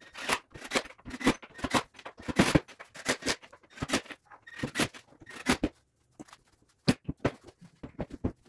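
Rapid, irregular clicking and clinking of small metal cabinet connectors being picked from a loose pile and fitted into pre-drilled holes in a cabinet panel. The clicks thin out after about six seconds, with one sharper knock about seven seconds in.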